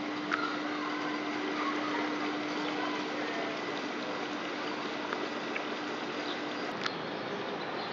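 Steady rushing outdoor background noise with a faint steady hum that stops near the end, and a few light clicks.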